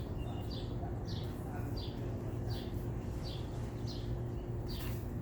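A bird chirping over and over, short high notes falling in pitch about one every 0.7 seconds, over a steady low hum.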